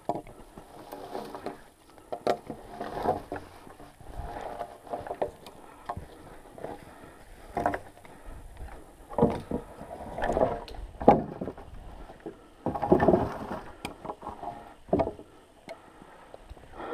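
Thin birch logs being handled and laid on a pile: irregular wooden knocks and clatters, with brushing of twigs and branches in between.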